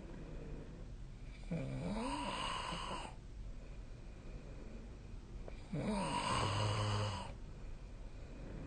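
A sleeping person snoring: two long snores about four seconds apart, each lasting about a second and a half, with quieter breathing between. A third snore starts near the end.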